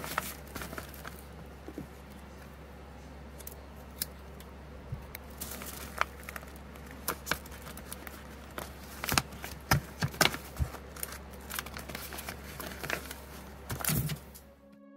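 Kraft-paper padded mailer being handled and pressed flat: paper crinkling and rustling with many scattered sharp clicks and taps, loudest in a cluster past the middle, over a low steady hum.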